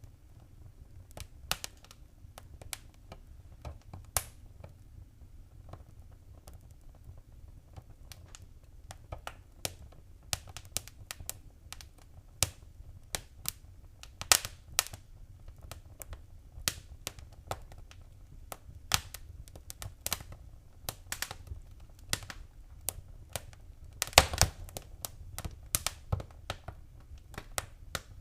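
Wood fire crackling: irregular sharp pops and snaps over a low, steady rumble of flames, with a burst of several loud pops about 24 seconds in.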